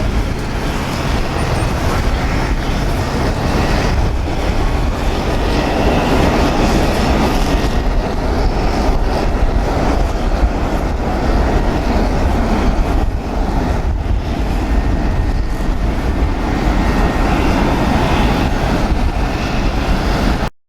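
Boeing 747 jet engine noise during landing: a loud, steady rumble with a broad roar over it, which cuts off abruptly near the end.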